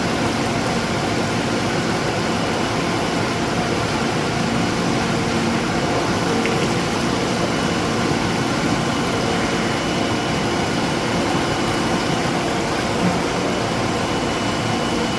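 MAXIA MX-LI500 vortex-type industrial vegetable washer running while washing green beans: a steady, even machine noise with a constant hum.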